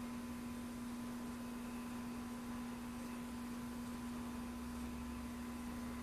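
Steady electronic hum: one unchanging low tone with a fainter higher tone, over a faint hiss.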